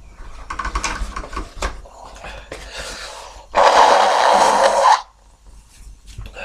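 A person's sniffling, catching breaths, then one loud nose blow lasting about a second and a half, starting about three and a half seconds in.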